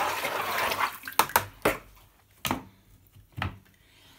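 Liquid ceramic glaze being stirred and sloshed in a bucket for about a second, then a handful of separate knocks and clatters.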